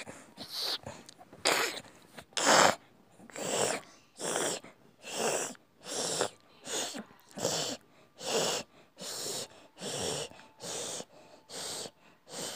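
Rhythmic, breathy wheezing sounds, a little over one a second, each a short rush of noise.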